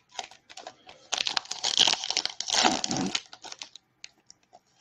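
Plastic wrapper of a 2019 Bowman baseball card pack being torn open and crinkled: a dense crackle for about two seconds starting about a second in, with a few scattered clicks around it.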